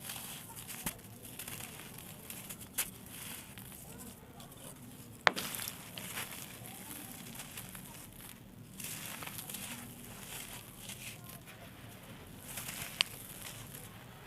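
Mini blocks of dry red sandy dirt crumbling with a crisp, gritty crackle and scattered pops. A sharp pop about five seconds in is the loudest, and another comes near the end.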